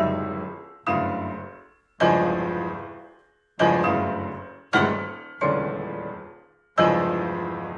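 Steinway grand piano played by a programmed player mechanism, striking seven loud, full chords at uneven intervals. Each chord is left to ring and die away, some fading into silence before the next.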